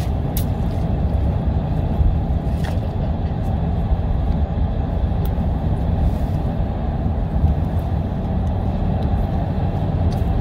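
A car driving, with a steady low rumble of engine and road noise and a few faint clicks.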